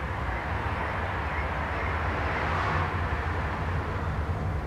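Steady outdoor background noise, a low rumble with a hiss over it, swelling a little around the middle.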